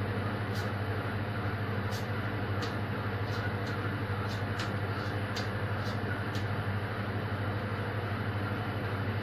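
Steady low machine hum with a noisy rush over it, the drone of running kitchen equipment, with irregular light high ticks about once a second during the first two-thirds.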